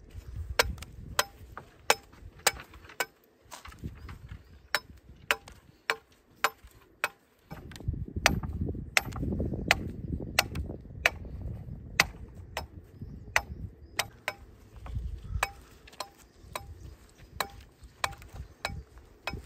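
Hammer blows, about two a second in uneven runs with short pauses, each a sharp crack and some with a faint metallic ring after it.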